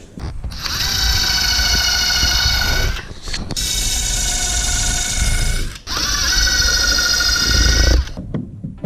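Power drill running in three steady runs of about two seconds each, with short pauses between them.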